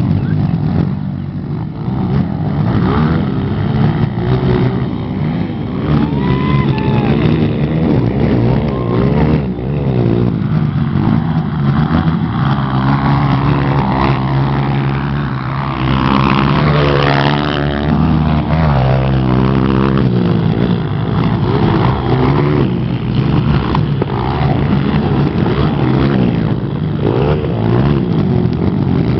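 Several motocross motorcycles racing, their engines revving up and down through the gears. About halfway through, one bike's engine comes through loudest and its pitch then falls away.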